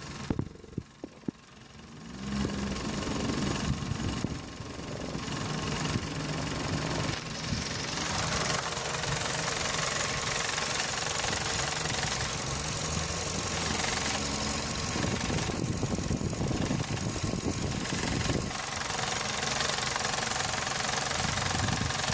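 A few sharp knocks, then from about two seconds in a Vauxhall Meriva B's engine-bay noise carried through a selfie stick held against the parts: the engine running with a rattle, which the owner has traced to something loose on the radiator fan housing.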